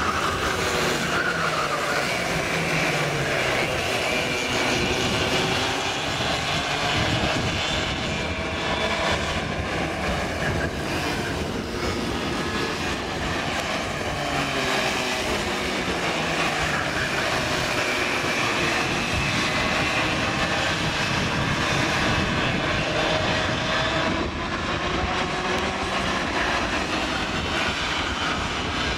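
A pack of Raket two-stroke racing kart engines buzzing as the karts race past, several engine notes rising and falling together.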